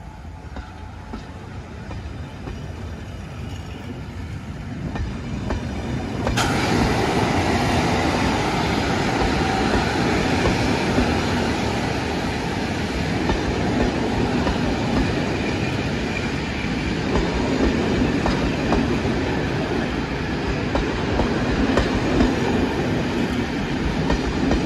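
Steam-hauled passenger coaches rolling past close by, their wheels clattering over the rail joints. The sound is fainter at first, jumps up sharply about six seconds in, and then stays loud and steady as the coaches go by.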